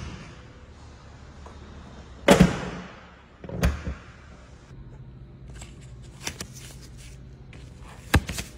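A car bonnet being shut: one loud thump about two seconds in, then a second, softer thud a little over a second later as it is pressed down. A sharp click comes near the end.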